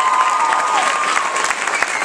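Audience applauding loudly after an a cappella song, with a held vocal note fading out about a second in.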